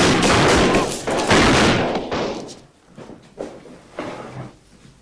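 A volley of many guns firing at once, rapid and overlapping, echoing in a small cellar room. The firing dies away about two seconds in, leaving a few scattered, quieter knocks.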